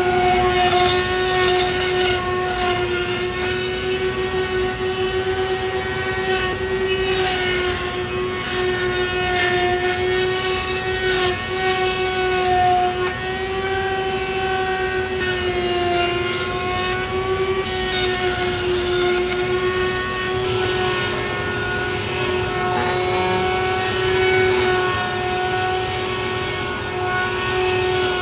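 Table-mounted wood router running at a steady high whine while its bearing-guided bit cuts the edges of wooden paddle blanks, with a rough rasping hiss that swells and fades as the wood is fed past. The whine's pitch sags slightly at moments when the bit takes more load.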